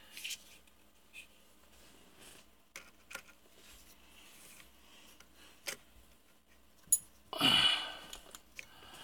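Scattered light metallic clicks and knocks from the headstock end of a lathe as the spindle is handled and rocked by hand to feel its play; the back spindle bearing is worn. About seven seconds in comes a sharp click, then a short, loud breath.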